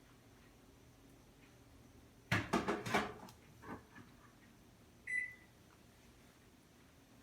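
A quick run of four or five sharp sneezes about two seconds in, followed by two weaker ones. A short high beep sounds about five seconds in.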